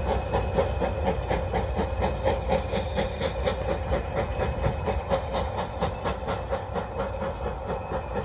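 Steam excursion train pulling away: rapid, even exhaust beats from the steam locomotive over a steady engine rumble, slowly getting quieter.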